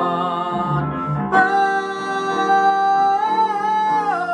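Male voice singing a show tune over a recorded accompaniment, holding out the word "on" in one long note that dips in pitch as it ends.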